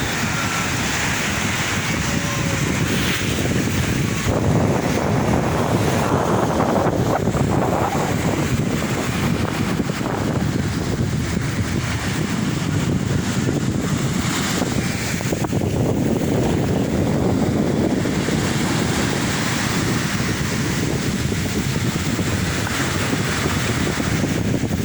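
Sea waves breaking and washing ashore in a steady rush that swells and eases every few seconds, with wind rumbling on the microphone.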